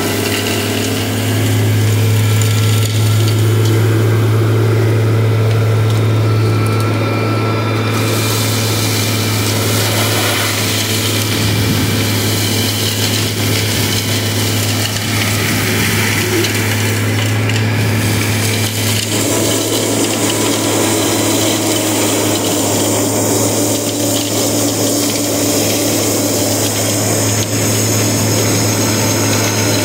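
Vacuum excavation truck running, a steady low hum from its engine and blower with air rushing through the suction tube. A high hiss opens up about eight seconds in, and a higher steady tone joins partway through.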